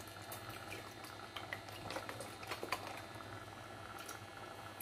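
Coconut milk poured from a carton into a pot of simmering glutinous rice: faint bubbling and liquid pouring, with a few light ticks.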